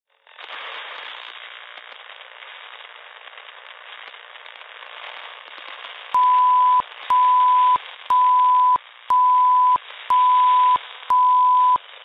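Radio-style static crackle, thin and narrow in tone. About halfway through, six loud steady beeps come in at one per second, each lasting about two-thirds of a second, like a countdown.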